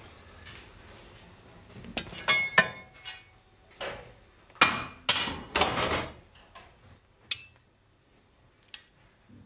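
Wooden kindling sticks clattering and knocking as they are laid out on a steam locomotive's steel footplate. A few sharp knocks come in clusters, about two seconds in and again around five seconds, followed by a couple of light clinks near the end.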